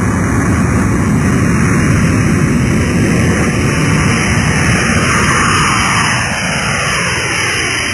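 Jet airplane taking off, its engine noise loud and dense, strongest in the first half. Past the middle it eases off, with falling sweeps in pitch as it moves away.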